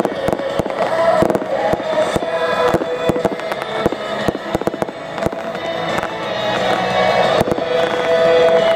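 Fireworks display: aerial shells bursting in a rapid series of bangs and crackles, with music playing at the same time.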